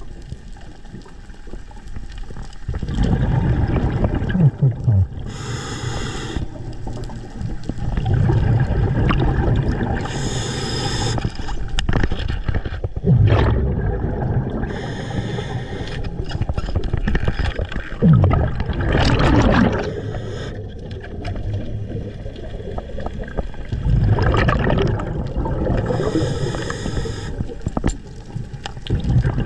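Underwater sound picked up through a camera housing: low rumbling water movement and handling noise as the diver moves with the speared fish, broken by a few short hissing bursts.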